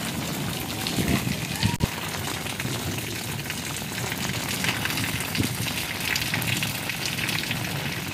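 Heavy rain falling steadily, a dense even hiss of drops, with a few low thumps and one sharp click just under two seconds in.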